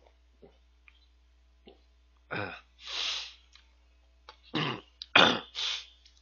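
A man coughing and clearing his throat in two bouts of hacking coughs, having choked on something that went down the wrong way.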